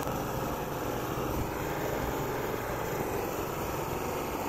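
East German Barthel petrol camping stove burning at full power under a pan, its burner giving a steady, even rushing noise.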